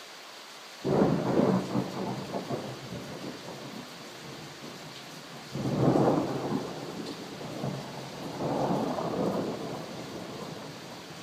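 Steady rain falling, with thunder rumbling over it: a sudden loud peal about a second in, a second rumble about halfway through, and a further roll soon after.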